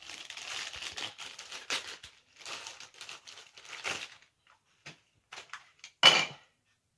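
Clear plastic wrapper crinkling as it is pulled off a TV remote, followed by a few light clicks and one loud, sharp crackle about six seconds in.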